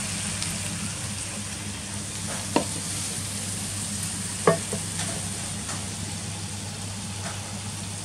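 Freshwater eel pieces sizzling in a hot wok while a wooden spatula stirs them, with two sharp knocks of the spatula against the wok, a couple of seconds in and again about two seconds later.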